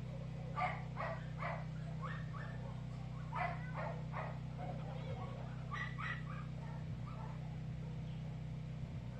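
Small dog giving short, sharp barks in quick runs of two or three, about a dozen in all. They are play barks: the dog is crouched low in a play bow.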